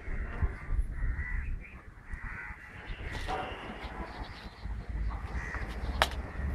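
Crows cawing several times over a low rumble, with a sharp click near the end.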